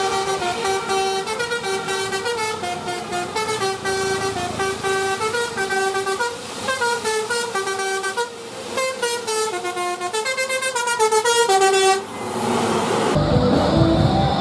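Multi-tone 'telolet' bus air horn playing a quick melody of stepped notes for about twelve seconds. It then breaks off, and a louder, noisier sound with a low rumble takes over near the end.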